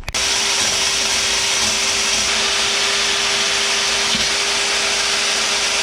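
Power cut-off tool starting suddenly and running steadily at speed with a loud hiss and a steady whine, as it is used to cut a section off a sheet-metal cowl patch.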